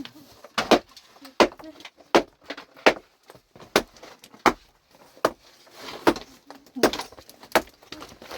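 Pickaxe striking rock again and again, about ten sharp blows a little under a second apart, breaking up stone that was weakened by fire.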